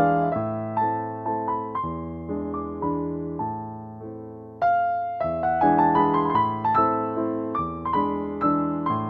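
Background piano music: notes and chords struck and fading away, easing off about four seconds in before a louder chord comes in.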